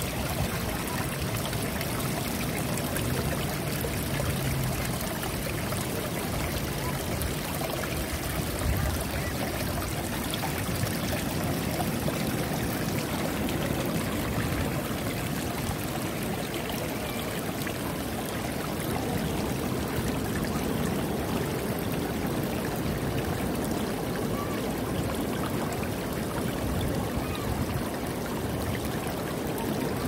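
Seawater rushing and trickling over shore rocks and through tide pools, a steady, unbroken wash of water.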